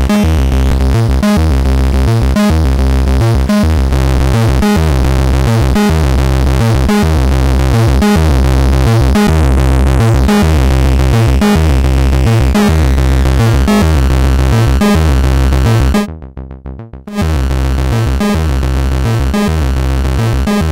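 Ants! analog synthesizer playing a repeating, bass-heavy sequenced pattern with a steady pulse, heavily distorted through the SPICE saturation and fuzz unit. The sound drops out for about a second near the end, then comes back.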